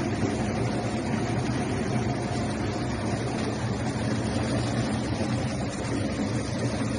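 Tuber peeling machine running steadily, its motor giving a constant low hum under an even mechanical rumble.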